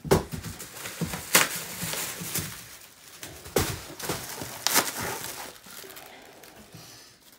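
Rustling and crinkling of silver foil packing wrap being handled and lifted out of a cardboard box, with several sharp crackles and knocks against the cardboard.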